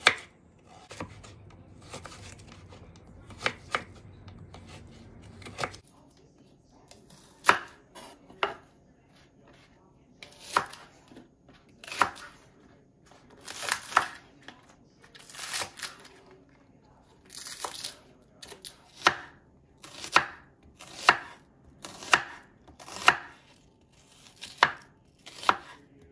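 A chef's knife slicing raw vegetables (carrot, then spring onions and onion) on a wooden cutting board. Each cut ends in a sharp knock on the board. The cuts come unevenly at first, then settle to about one a second.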